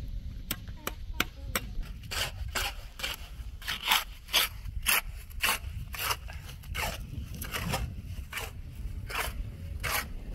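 A few sharp clicks, then from about two seconds in a steady run of scraping strokes, roughly two a second.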